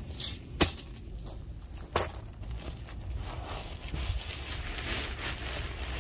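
Two sharp knocks about a second and a half apart, then a rushing noise of wind on the microphone that grows louder from about halfway through.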